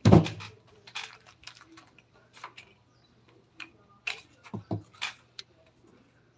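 A loud knock, then irregular light clicks and taps of hard objects being handled, with two dull thuds about four and a half seconds in.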